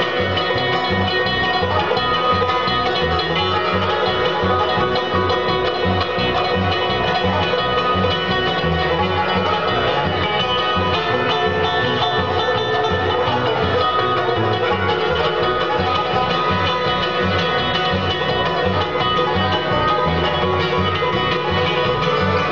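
Bluegrass band playing an instrumental passage live, with banjo prominent over guitar, and a steady, even beat in the low end.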